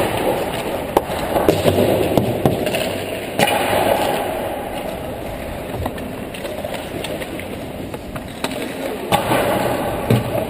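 Ice hockey skate blades gliding and scraping on rink ice, heard from a helmet-mounted camera, with a few louder scrapes about three and nine seconds in. Scattered sharp clacks of sticks and pucks run throughout.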